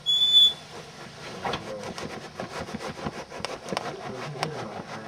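Socked feet shuffling and scuffing across carpet in a dense run of rubbing scrapes. It opens with a short, loud burst that carries a high steady tone.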